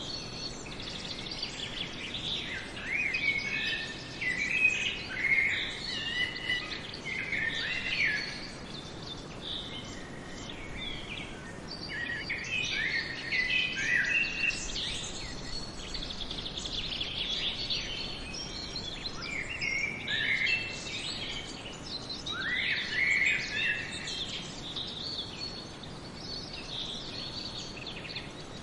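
Several songbirds singing, with overlapping chirps and whistled phrases in flurries over a faint steady background hiss of forest ambience.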